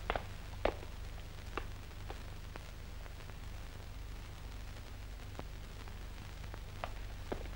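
Background noise of an old film soundtrack: a steady low hum with scattered clicks and pops. The loudest pops come near the start.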